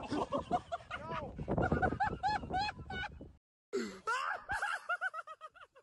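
Excited voices laughing and crying out in quick high-pitched bursts several times a second. About halfway through the sound cuts out abruptly for a moment, then more laughing and shrieking follows.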